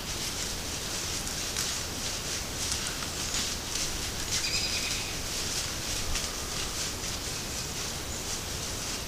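Steady hiss with faint scattered crackles of white-tailed deer stepping through dry leaf litter, and one short bird call about four and a half seconds in.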